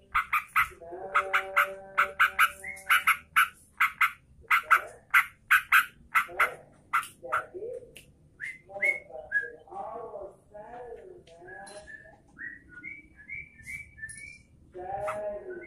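Yellow-vented bulbul (trucukan) calling: a fast run of short, harsh chattering notes, then a looser series of bent and chirping notes in the second half.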